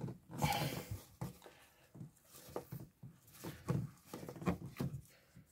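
Gloved hands gripping and twisting a spin-on diesel fuel filter canister to unscrew it from its head: faint, irregular rubbing and handling noises of glove on metal.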